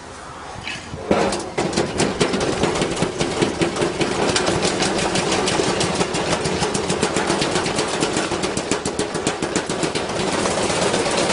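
Washing machine starting about a second in and spinning with a heavy piece of iron loose in the drum, which bangs against it in rapid, irregular knocks over the steady motor hum. The knocking gets louder and denser near the end as the drum speeds up.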